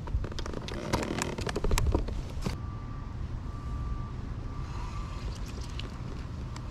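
Quick clicks and knocks of fishing gear being handled on a kayak, thick for the first two and a half seconds, over a low rumble of wind on the microphone. After that comes a quieter stretch with a faint, thin, steady tone.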